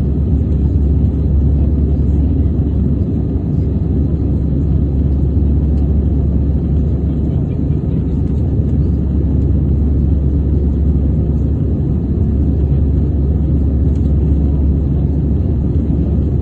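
Airbus A320 airliner's engines and airflow making a steady, loud low rumble.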